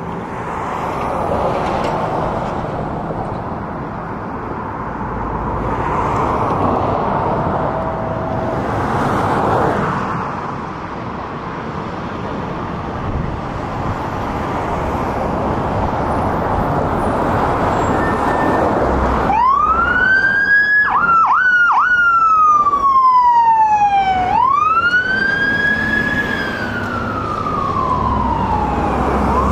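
Fire engine's diesel running as it pulls out, a steady rumble with slow swells. About two-thirds of the way in its siren starts wailing. It rises quickly, breaks into a couple of sharp dips, then falls slowly and climbs again, rising and falling about twice more.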